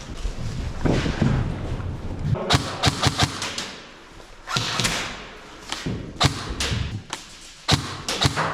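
A string of sharp knocks and thuds in irregular clusters, with a short noisy rush in the middle.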